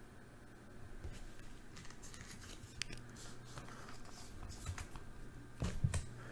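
Faint handling of trading cards: soft sliding, scraping and light clicks as cards are moved and set down, with a couple of louder knocks near the end.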